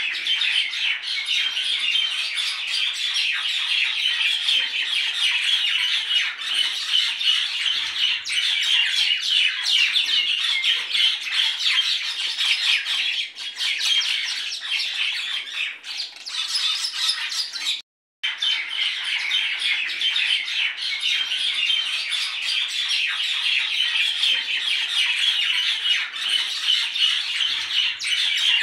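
A dense chorus of many birds chirping and squawking over one another without pause. It cuts out briefly about eighteen seconds in, then carries on as before.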